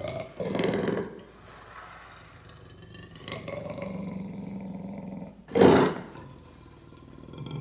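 Male lion roaring and growling in several bouts, the loudest a short, sharp roar about five and a half seconds in.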